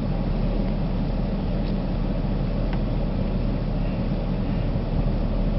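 Steady, low engine and road noise heard from inside a vehicle's cabin.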